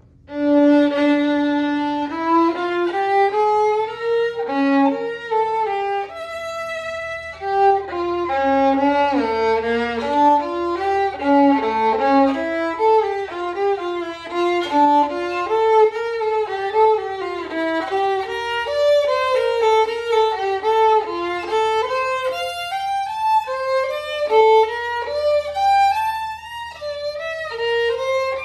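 Solo violin bowed unaccompanied, starting with a long held low note and then playing a continuous melodic passage that moves through many notes, at times down near the bottom of its range.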